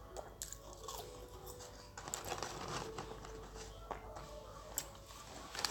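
Close-up chewing and wet mouth clicks of someone eating french fries, with a scatter of short crackles as fingers rustle the paper fries carton to pick out more.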